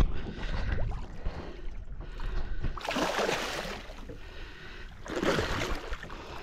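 A hooked tope thrashing at the surface beside the boat, two bursts of splashing about two seconds apart, over lapping water.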